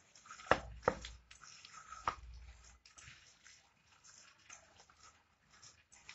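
A bare hand kneading and squashing boiled elephant foot yam mash with fried prawns in a steel plate: soft wet squishing. Three sharper clicks come in the first two seconds or so.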